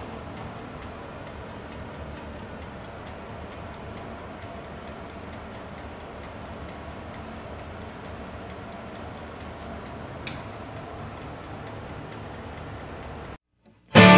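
Mechanical timer of a Pensonic AE-19N electric oven ticking rapidly and evenly while the oven runs with its heating elements on, over a steady low hum. It cuts off suddenly near the end.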